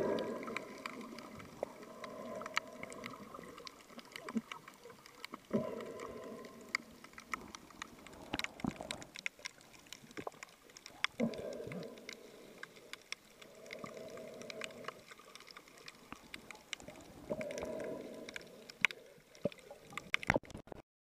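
Underwater sound picked up by a camera in a waterproof housing: scattered sharp clicks and crackles, with a muffled whooshing sound about a second long every few seconds. It cuts off suddenly just before the end.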